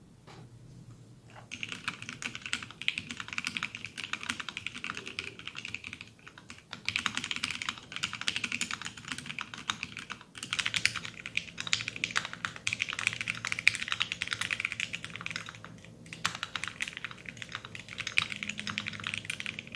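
Typing sound test on a Minivan custom mechanical keyboard with Alpaca switches in an acrylic gasket-mount case, typed both with its 3D-printed plate and as a bare PCB on foam. There are steady runs of keystrokes in about four stretches, each broken by a short pause.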